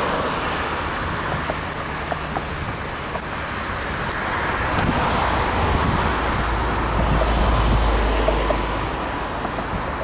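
Steady outdoor background rumble and hiss, growing louder and deeper between about five and nine seconds in.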